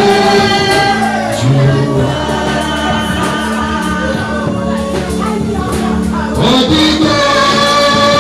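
Gospel worship song: a choir singing long held notes over a steady instrumental accompaniment.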